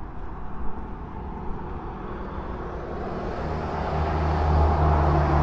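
A motor vehicle passing on the road beside the lot: a steady rushing noise grows gradually louder, and a low engine hum joins it a little over halfway through.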